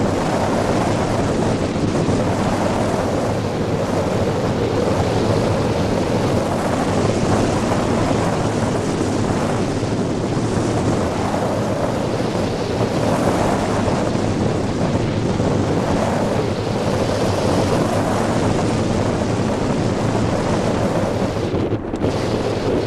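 Loud, steady rush of wind buffeting the microphone in flight on a tandem hang glider, the airflow of gliding flight.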